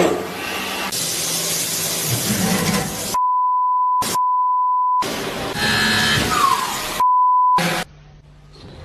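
A steady electronic bleep tone edited over the sound track, two long beeps and a shorter third, cutting into loud, noisy machine sound. Near the end it drops to a quieter low hum.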